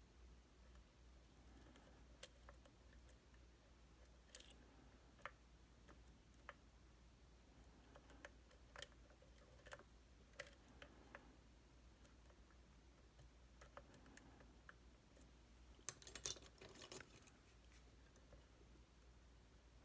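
Faint, scattered metallic clicks and ticks of a pick working the pins of a Titan T250 dimple lock under tension, with a louder cluster of clicks about sixteen seconds in.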